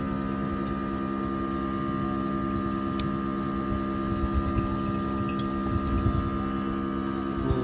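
Battery-powered portable milking machine's vacuum pump running with a steady hum while its teat cups milk a cow.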